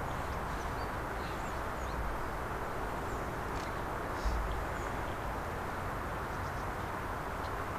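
Outdoor ambience: a steady background rumble with a few faint, short, high bird chirps, and a single low thump about four seconds in.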